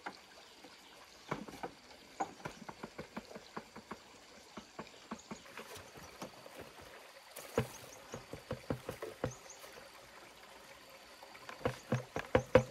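Irregular light knocks and taps in short runs of a few a second, loudest near the end, over a low steady hiss.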